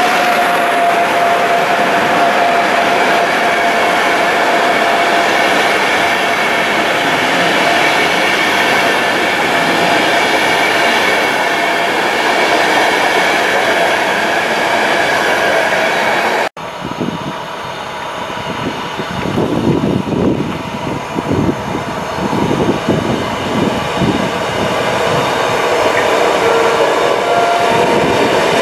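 Passenger coaches of an express train hauled by an EU44 Husarz (Siemens Taurus) electric locomotive running past at speed: a loud, steady rolling rush of wheels on rail with a fading whine. After a sudden cut about halfway through comes a quieter, uneven rumble as a Koleje Mazowieckie electric multiple unit approaches.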